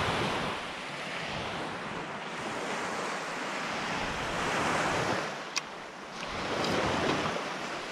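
Gulf surf breaking and washing up the beach in slow swells, with wind buffeting the microphone. A single sharp click about two-thirds of the way through.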